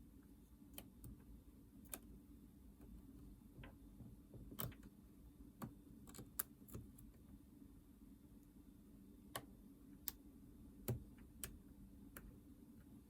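Faint, irregularly spaced small clicks and taps of soldering tools against the DS Lite's circuit board and power switch while the switch is being desoldered, over a low steady hum.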